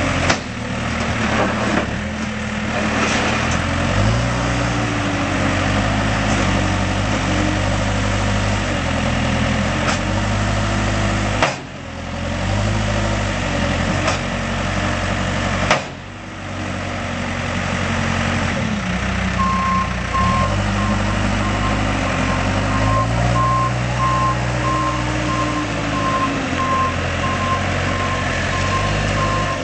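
Case 590SM loader backhoe's diesel engine running, its speed rising and falling several times as the machine is worked. From about two-thirds of the way in, a backup alarm beeps steadily and evenly, the sign that the machine is reversing.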